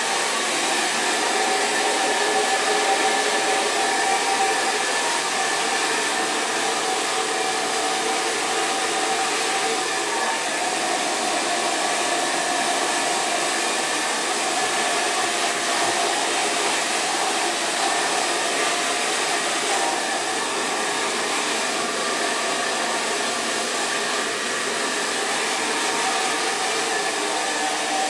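GHD hand-held hair dryer with a diffuser running steadily on medium heat: a continuous rush of air with a faint steady whine.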